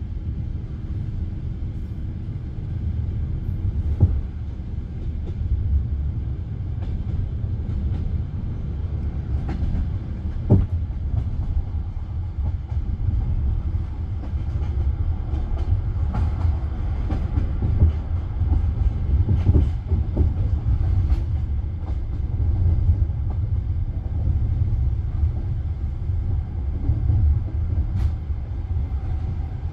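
Passenger train wheels running over the rails, heard from inside the carriage: a steady low rumble with an occasional sharp knock from the rails.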